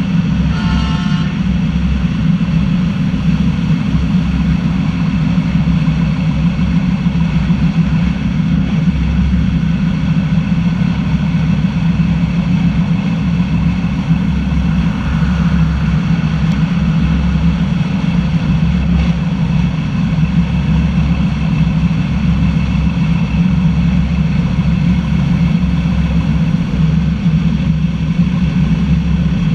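Zentralbahn narrow-gauge electric train running steadily along the track, a continuous low running hum and rumble with no change in pace. A brief higher tone sounds about a second in.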